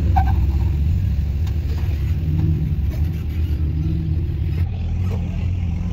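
Jeep engine running low and steady as it crawls along an off-road trail, with a deep rumble and a few faint knocks.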